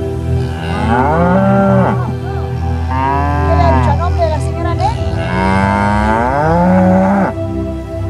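Cattle mooing: three long moos, each rising and then falling in pitch, one after another with short gaps.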